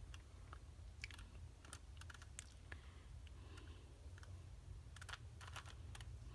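Rubik's Cube layers being turned by hand: faint, irregular plastic clicks and snaps, a few close together, over a steady low hum.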